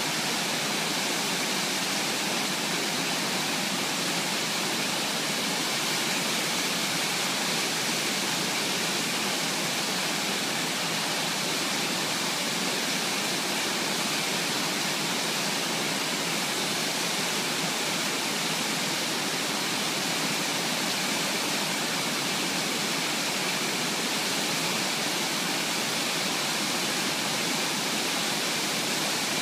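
Waterfall pouring over a rock ledge into a pool: a steady, even rush of falling water with no change in level.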